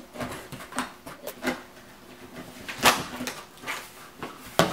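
Knife slitting packing tape on a cardboard box, then the cardboard flaps being pulled open: a run of short scrapes and knocks, the loudest about three seconds in and another near the end.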